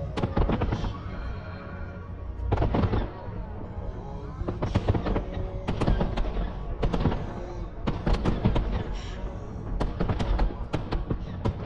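Aerial fireworks shells bursting in quick succession, a dense string of sharp bangs and crackles over a steady low rumble, with music playing underneath.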